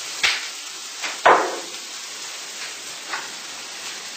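Vegetables sautéing in butter in a frying pan with a faint steady sizzle. Two sharp knocks cut through it, one near the start and a louder one about a second later, each ringing briefly.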